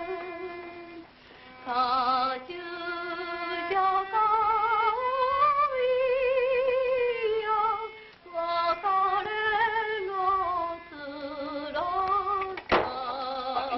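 A woman singing a slow song, her voice held in long phrases with a wide vibrato, with short breaks about a second in and about eight seconds in. A sharp click sounds near the end.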